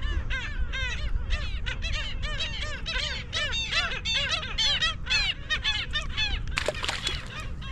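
A flock of birds calling: many short rising-and-falling calls, overlapping and repeating several times a second.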